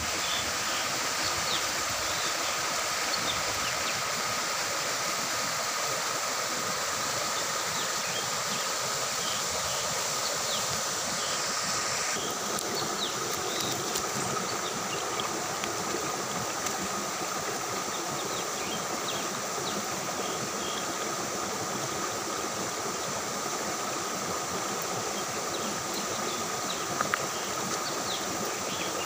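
Steady forest ambience: an even hiss with a constant high-pitched drone, typical of insects, and a few faint chirps. About twelve seconds in, the sound shifts slightly to the running water of a shallow rocky stream under the same drone.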